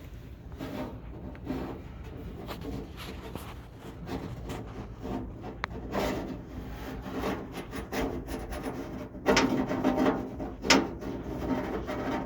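A small metal seat-belt bracket on a thread scraping, rubbing and clicking inside the hollow sheet-metal cab pillar of a 1974 Ford F100 as it is worked down into place. The scraping is irregular, with a few sharp clicks and a louder run of knocks about two thirds of the way through.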